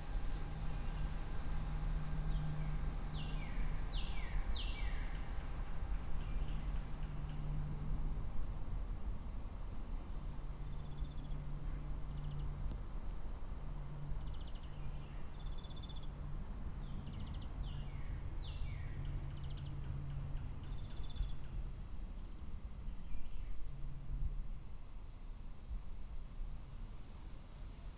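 Outdoor farm ambience: a steady, high, pulsing insect chirr, with birds giving quick downward-sliding calls in a few clusters. A low hum comes and goes underneath.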